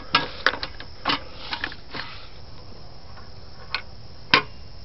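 Vintage Northwestern 5-cent gumball machine dispensing a gumball: a string of small sharp metal clicks and knocks from its mechanism and delivery chute, several close together in the first two seconds, then two more, the louder one near the end.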